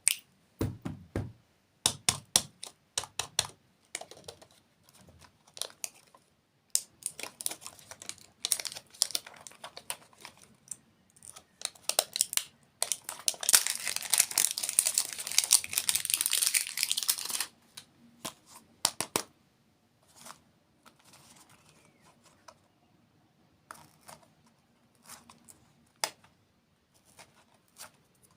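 Plastic candy wrappers crinkling and tearing, with sharp clicks and taps between; a long burst of steady crinkling about halfway through.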